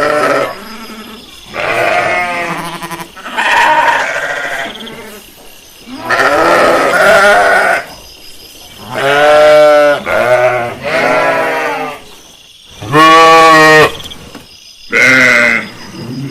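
Sheep bleating over and over, about eight separate calls with short pauses between them. The longer bleats have a quavering, wavering pitch.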